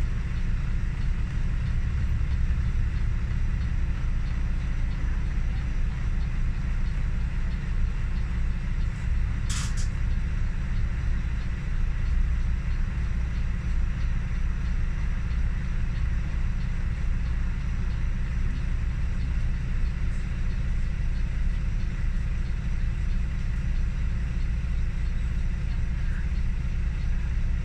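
City bus engine idling, a steady low rumble heard from inside the bus while it stands at a junction. A short hiss of air cuts in once, about ten seconds in.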